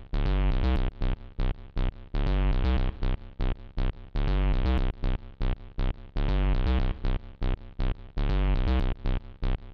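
Electronic background music: short chopped synthesizer notes alternating with longer held chords in a repeating rhythm.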